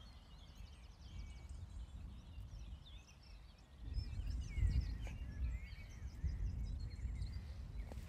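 Many small birds chirping and singing in the background, over a low rumble that grows louder about four seconds in.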